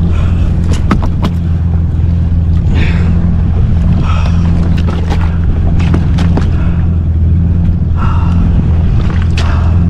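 Jet ski engine idling with a steady low hum, while a freshly landed Spanish mackerel thrashes in the catch bag on the hull, knocking and slapping against it in sharp clusters about a second in, in the middle, and once near the end.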